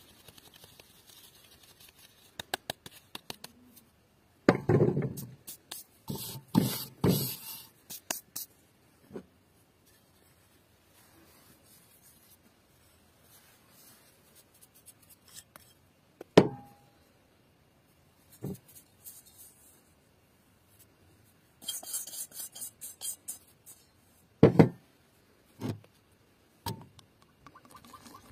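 Scattered knocks, taps and rustles as flour is sifted through a wooden-rimmed sieve and handled in an enamel basin, with a few louder thumps about five seconds in, a sharp click midway and another thump near the end.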